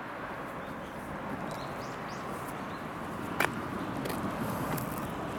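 Steady outdoor background hiss with a few short, rising bird chirps, and one sharp click about three and a half seconds in.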